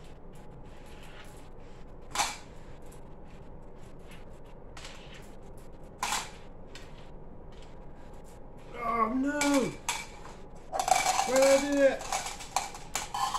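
Small pieces clicking and ticking as they are dropped into clear plastic cups, with two sharper clacks about 2 and 6 seconds in. Near the end a voice sounds twice, with no words, its pitch rising and falling.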